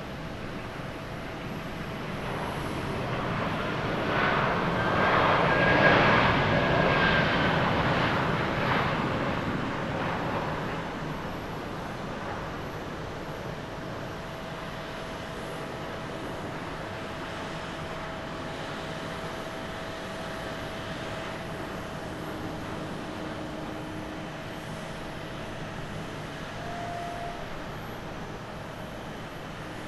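Jet engines of an Airbus A330-300 airliner (two Pratt & Whitney turbofans) running as it rolls out along the runway after landing. The noise swells to its loudest about six seconds in, with a faint whine, then settles into a steadier, quieter hum.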